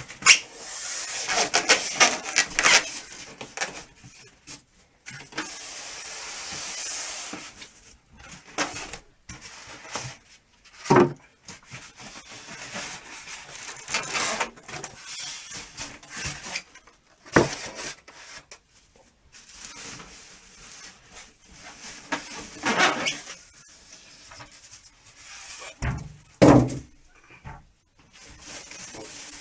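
A PC case being unpacked by hand: irregular rustling and rubbing of its packing, with several knocks and thumps as it is handled.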